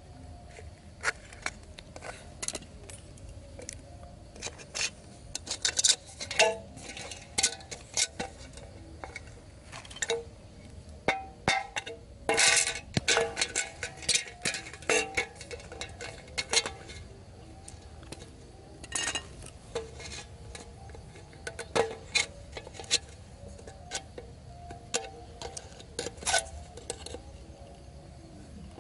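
Thin aluminium drink can being cut with a blade and worked with wire and pliers: irregular sharp metallic clicks and crinkles, some louder clusters among quieter taps.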